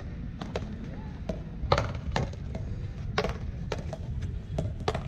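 Paleta frontón rally: a rubber ball struck by wooden paddles and smacking off the concrete front wall and court, a run of sharp knocks every half second to a second, with a few louder cracks.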